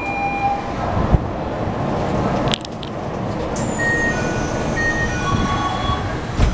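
Doors of a Keikyu New 1000 series commuter train closing at a station stop, with a few short chime tones stepping lower in pitch and a low thud as the doors shut near the end, over steady car and platform noise.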